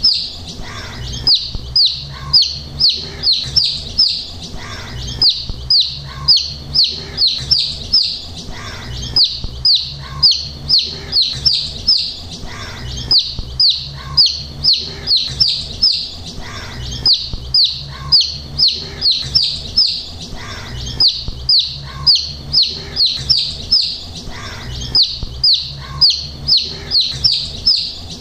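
Baby chicks peeping: a steady stream of loud, high cheeps, each falling in pitch, several a second in runs with short pauses between.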